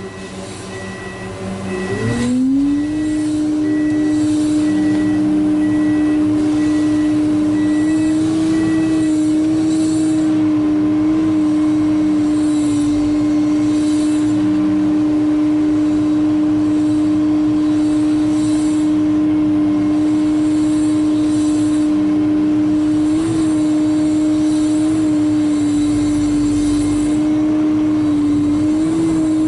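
Diesel engine of a wheeled excavator revving up from idle about two seconds in, then running steadily at working speed. An evenly repeating beep sounds over it for roughly the first nine seconds.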